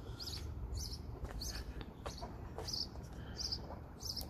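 A small bird chirping, short high chirps repeated every half second or so over faint outdoor background noise.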